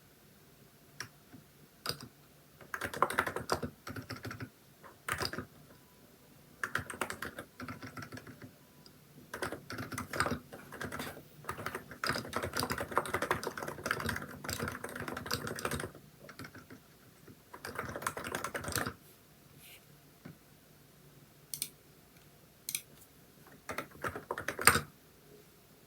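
Typing on a Hansung electro-capacitive keyboard with XDA keycaps: quick runs of keystrokes broken by short pauses, the longest run in the middle. It then thins to scattered single keys, with one sharper stroke near the end.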